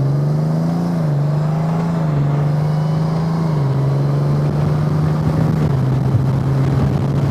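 Motorcycle engine running under way, heard from the rider's helmet mic with wind rush. Its pitch climbs over the first second, then drops a step at a time a few times.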